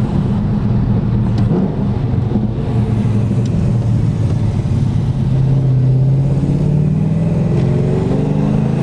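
Cammed Holden VY Commodore SS V8 running through Pacemaker extractors and a 3-inch X-Force exhaust, holding a steady note at first and then rising in pitch as it accelerates, from about five seconds in.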